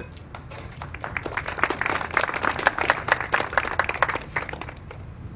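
Audience applauding. Scattered claps build in the first second, run thick for about three seconds, then thin out and stop near the end.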